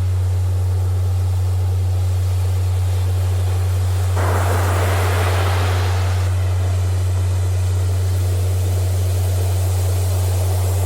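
A steady deep pure tone, a Rife-frequency tone, plays over the hiss of ocean surf. A wave washes in loudly about four seconds in and recedes, and another swell builds near the end.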